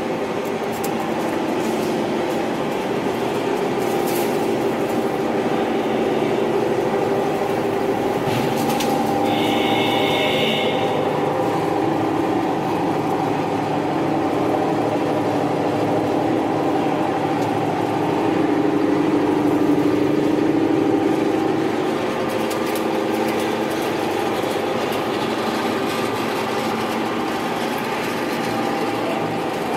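Coir pith screening plant running: screener, geared drive motors and belt conveyors giving a steady mechanical drone. A brief high tone sounds about nine seconds in.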